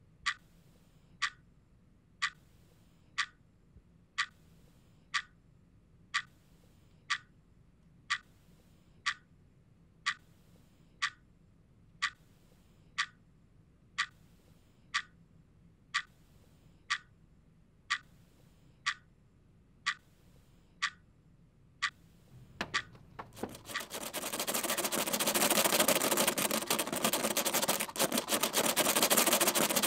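A clock ticking steadily, about once a second. About 23 seconds in, a loud hissing noise swells up and takes over, and the ticking is no longer heard.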